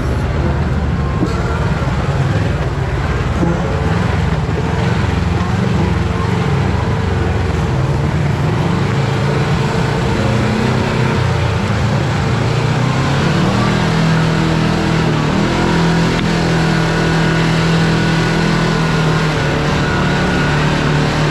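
Kawasaki KRX4 1000 side-by-side's engine running while driving, its pitch rising and settling with the throttle and holding a higher note for the last third, over a steady haze of tyre and wind noise.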